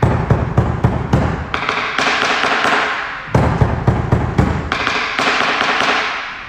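Quick thumps and taps of bare feet stepping and landing on a studio floor as several dancers move at once. The knocks come in surges that start abruptly, at the beginning and again about three seconds in, and fade away.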